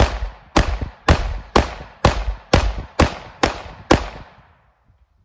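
Taurus GX4 9mm pistol firing Underwood 115-grain +P Tac-XP rounds in steady rapid fire. Nine sharp shots come about two a second, each with a short echo, and the last comes about four seconds in. These are the final shots of a 13-round magazine, all fired with no duds.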